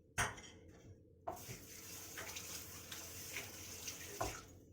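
Soft steady hiss of flour in a mixing bowl as it is worked in slowly, after a short click near the start.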